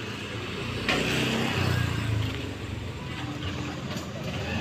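A motor vehicle passing close by on the street. Its engine and road noise swell about a second in, are loudest over the next second or so, then fade.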